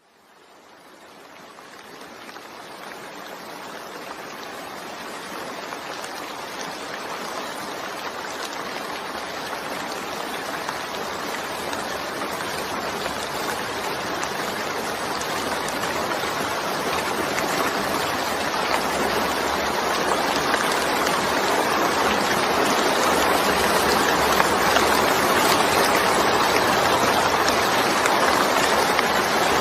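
Steady, dense rain hiss that fades in from silence and swells gradually over the first twenty seconds or so, then holds level.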